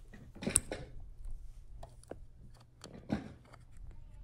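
Quiet handling noise as cables and small plastic plugs are fitted by hand, with scattered sharp clicks. The loudest click comes with a brief rustle about half a second in, and another rustle comes about three seconds in.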